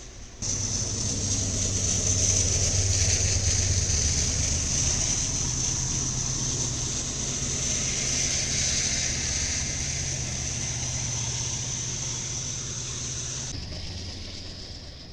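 Freight train passing close by: diesel locomotives running with a steady low drone under a loud, high rushing noise of the rolling train. The sound comes in suddenly just after the start, and the high rushing stops abruptly near the end.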